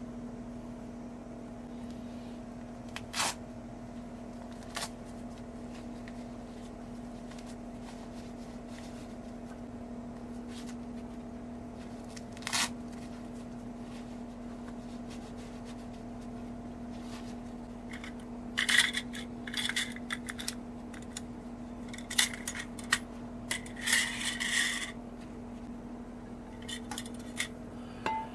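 Metal camping cook gear being handled: a few single clinks, then a run of ringing metallic clinks and rattles in the second half. A steady low hum sits underneath throughout.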